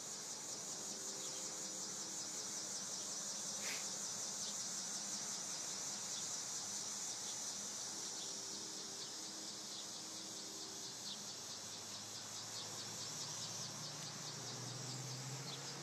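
A steady, high-pitched chorus of insects trilling on a summer evening, with a faint low hum coming in near the end.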